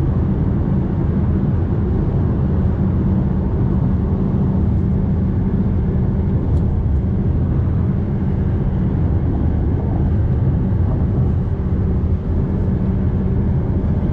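Fiat Toro Volcano pickup cruising on the highway: a steady diesel engine drone mixed with tyre and road noise, holding an even level throughout.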